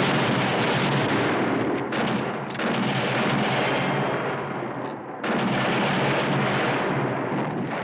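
A dense, continuous barrage of gunfire from many guns firing at once, eased off briefly twice.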